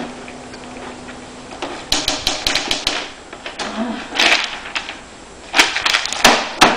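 Typewriter keys clacking in quick, irregular runs of sharp strikes, starting about two seconds in and pausing twice.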